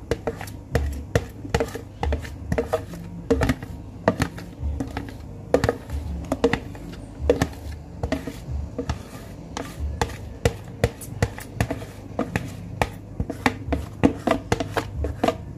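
Kitchen utensil clicking, knocking and scraping against a dish, several quick uneven strikes a second, as cake batter is mixed and spooned.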